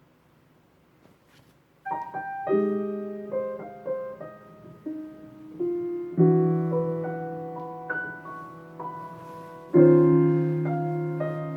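Solo piano intro of a jazz ballad played back through vintage JBL Lancer L77 loudspeakers, starting about two seconds in after near silence, with single notes and then fuller chords struck about six and ten seconds in.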